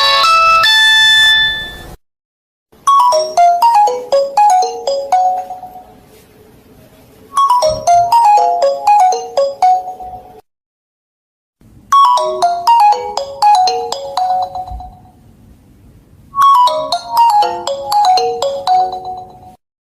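Nokia mobile phone ringtones. A bright, high-pitched melody ends about two seconds in. After a short pause, a different tune starts: a short phrase of plucked-sounding, quickly fading notes, played four times with brief pauses between.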